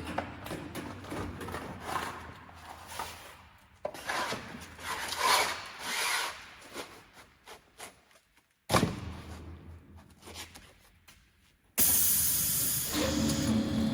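Sanding belt slitting machine at work, knives slitting abrasive belt with rubbing and grinding noise, in short segments that cut abruptly from one to the next. About a second before the end a steady machine hum with a low tone sets in.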